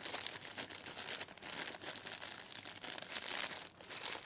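Plastic bag of replacement CPAP filters crinkling and rustling as it is handled, in uneven bursts that are loudest about three seconds in.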